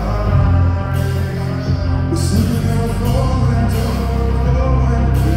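A live heavy metal band playing loud: distorted electric guitars and bass over a heavy low end, with drum cymbal crashes recurring about every second and a half. Heard from the audience in a large hall.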